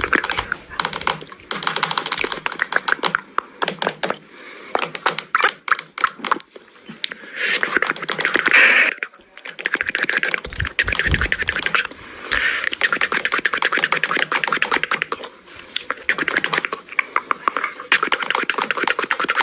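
Vocal sound effects made with the mouth, beatbox-style: fast trains of clicks and breathy vocal noises in bursts, with short pauses between them.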